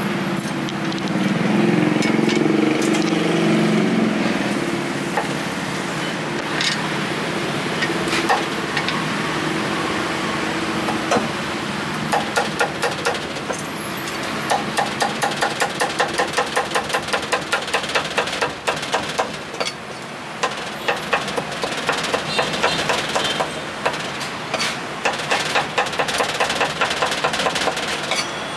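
Cleaver chopping roast pork belly on a thick round wooden chopping block: quick even strokes, about four to five a second, in repeated runs from about twelve seconds in. Before that, street traffic with a motor engine running is the loudest sound.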